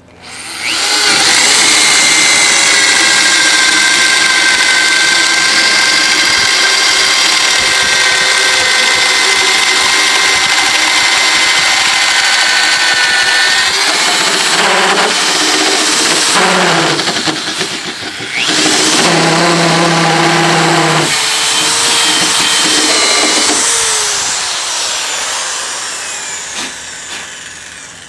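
Power drill boring a 1-inch auger bit down into the top of a wooden deck post. It runs as a steady high whine, then after about 14 seconds the pitch wavers and lower tones come in. The drill stops briefly near 18 seconds, starts again, and winds down near the end.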